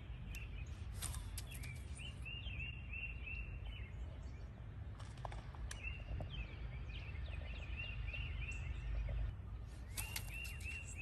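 A bird singing: three bouts of quickly repeated short chirping notes, over a steady low outdoor rumble, with a few sharp clicks between.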